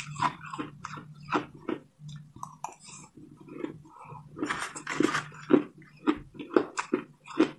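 Shaved ice being crunched and chewed in the mouth: irregular crisp crunches a fraction of a second apart, densest about five seconds in, with a low steady hum underneath.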